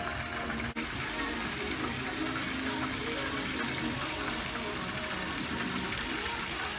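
Garlic sauce simmering in a frying pan: a steady hiss.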